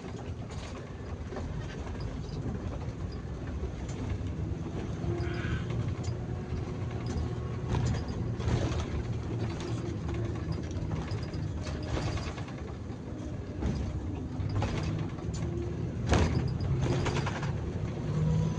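Bus under way: a steady engine and road rumble inside the cab, with irregular rattles, creaks and knocks from the body, the sharpest knock about sixteen seconds in.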